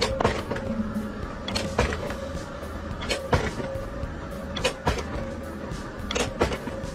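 Pipe-bending machine forming a steel pipe into a wrinkled elbow: a steady motor whine, with sharp metal knocks in pairs about every second and a half.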